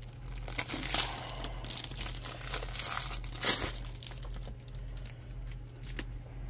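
Crinkling of the clear plastic bag around a rolled diamond painting canvas as it is handled, with louder rustles about a second in and again around three and a half seconds, then quieter.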